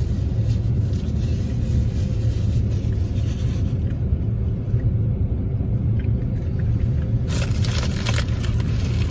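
A car's engine idling, a steady low rumble heard inside the cabin. Near the end comes a brief crackling scrape as a straw is pushed into a plastic drink cup and cracks it.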